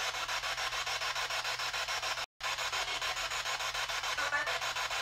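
Ghost-hunting spirit box sweeping through radio stations: a steady hiss of static chopped into rapid pulses, cutting out briefly about halfway through. Faint snatches of radio sound come through near the end, which the investigators hear as a voice saying 'hello'.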